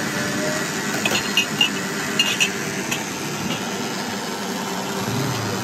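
Steady street noise of traffic and engines, with a few short clinks a second or two in.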